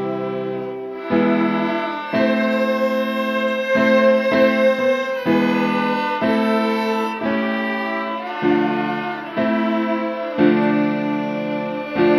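Small orchestra playing a slow instrumental passage: held chords that change about once a second, with a bowed cello among the instruments.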